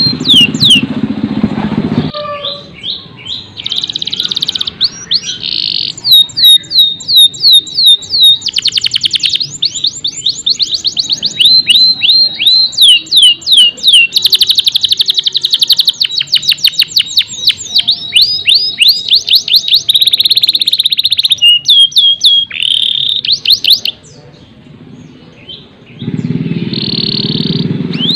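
Domestic canary singing a long song of rapid repeated trills and chirps, phrase after phrase, with a short pause near the end. A low rumble sits under the song at the start and again near the end.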